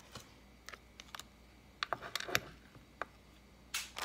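Light, irregular clicks and taps of small lock cylinders being handled and turned over, with a short rustle or scrape near the end.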